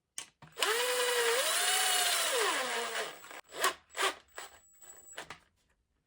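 A cordless drill-driver drives a 1.5-inch number 8 wood screw. Its motor whines for about two and a half seconds, and the pitch drops near the end as it slows. A few light clicks follow.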